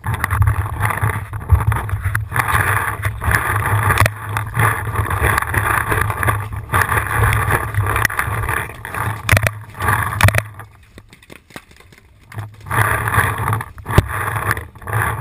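Rumbling noise from a body-worn camera rubbed and buffeted while the player runs and crouches against an inflatable bunker. It is broken by a few sharp knocks and drops away for a couple of seconds past the middle.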